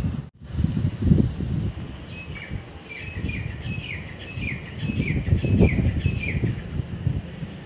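A bird calling over and over, a run of short squawky notes that slide downward, about two a second for several seconds, over a low, uneven background rumble.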